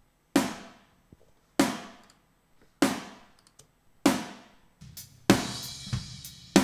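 Mixed snare-drum track played back: four backbeat snare hits about 1.25 s apart, each with a long decaying tail. The close-miked snare is layered with a triggered snare sample tuned to the same pitch and given a room ambience. About five seconds in, denser drum-kit hits with cymbal wash join.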